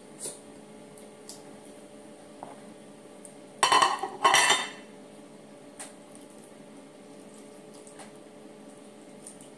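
Dishes clattering as a plate and bowl are handled: two loud clattering bursts close together about three and a half seconds in, with a few light clinks before and after.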